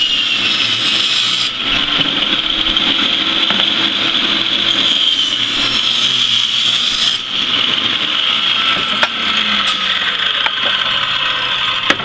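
Portable table saw running with a steady high whine, its blade crosscutting a pressure-treated pine fence board into short lengths.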